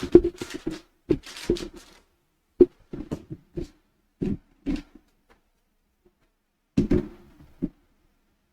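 Short knocks and clicks of tools and small parts being handled on a workbench: a dense run over the first couple of seconds, then single taps about every half second, and a last small cluster near the end.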